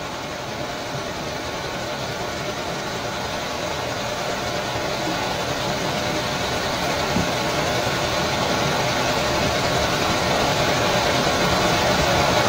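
A steady mechanical drone that grows gradually louder.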